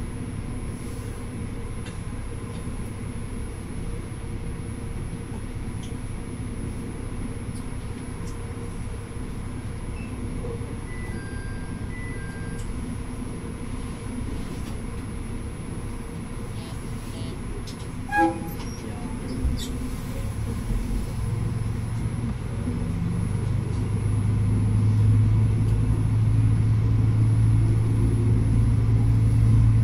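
Tsugaru Railway diesel railcar running along the line with a steady rumble. A short sharp blip comes about two-thirds of the way through. Near the end the low engine note swells and holds louder as the railcar powers up.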